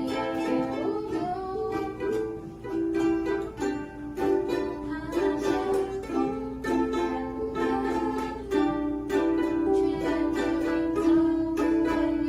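Ukulele playing the song's chords and melody, strummed in a steady rhythm with a single-note melody line above the chords.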